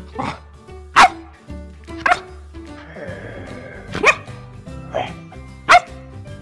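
Bernese Mountain Dog puppy barking, about six short sharp barks at uneven intervals, over background music.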